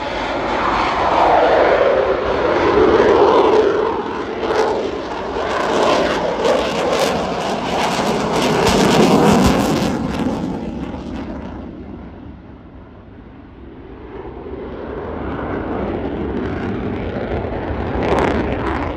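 Eurofighter Typhoon's twin EJ200 turbofans in afterburner on a display pass: loud jet noise sweeping down in pitch as the jet passes, with crackling through the middle. It fades about twelve seconds in, then builds again and peaks briefly near the end.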